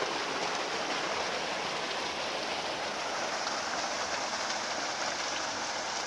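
Water gushing from a solar-powered tubewell's outlet pipes and splashing into a concrete tank: a steady rushing noise.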